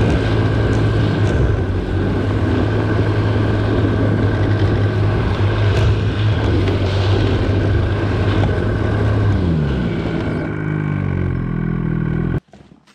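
A motor vehicle's engine running steadily under load, its pitch falling about ten seconds in as it slows, then cutting off suddenly near the end.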